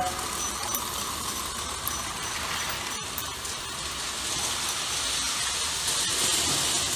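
Vintage Lionel electric toy train running around its track: a steady whir and rattle from the motor and wheels.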